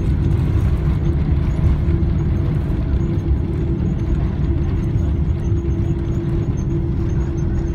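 Cabin noise of a Boeing 777 rolling out on the runway after touchdown, its ground spoilers raised: a steady low rumble with a steady hum running through it.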